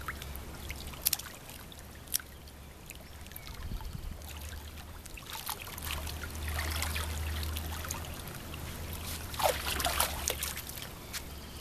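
Swimming pool water sloshing and trickling around a baby being dipped in it by hand, with scattered small splashes over a steady low rumble. The splashing gets louder about three quarters of the way through as she is lifted out of the water toward the edge.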